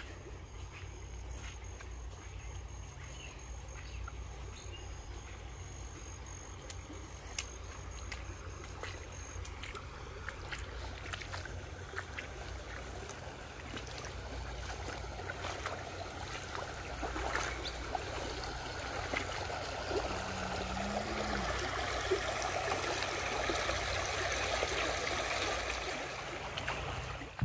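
Flowing water of a small creek swollen after heavy rain, a rushing hiss that grows steadily louder through the second half.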